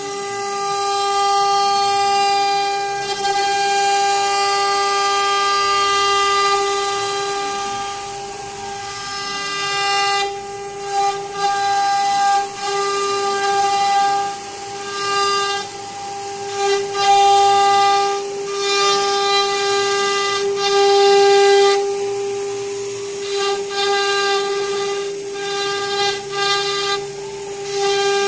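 CNC router spindle whining at a steady high pitch while a V-bit carves grooves into a wooden door panel. From about ten seconds in, bursts of rougher cutting noise come and go as the bit bites into the wood.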